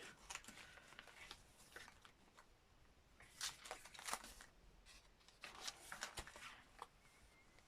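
Faint rustling of paper pages being handled and turned, in a few short soft bursts around the middle and near the end.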